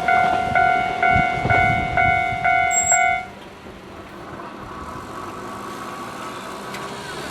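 Japanese level-crossing warning bell ringing its repeated electronic ding about twice a second, then stopping a little past three seconds in as the crossing clears after a train. The low rumble of the passing train fades in the first couple of seconds.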